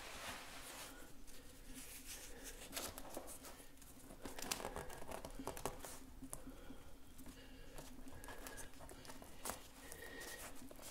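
Sheets of newspaper rustling and crinkling as they are pressed and smoothed flat by hand onto a paper collage, with scattered short rustles.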